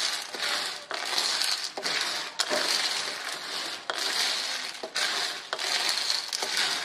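A wooden spatula stirring shell-on guteng in an aluminium wok, the shells scraping and clicking against the pan in repeated strokes, over a steady hiss.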